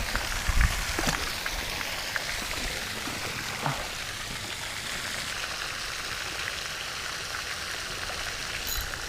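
Steady outdoor hiss like running water, with a few faint light clicks scattered through it.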